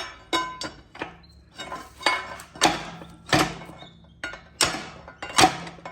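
Steel crowbar prying at a part of a GM 9.5-inch rear axle assembly: a run of irregular sharp metal-on-metal knocks and clanks, several ringing briefly, as the bar is levered and repositioned against the seized part.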